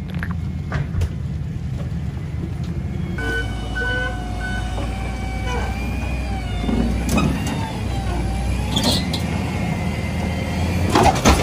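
A motor vehicle running with a steady low rumble. About three seconds in, the sound changes abruptly to an engine rumble with whining, slowly wavering tones over it. There is a short loud burst near the end.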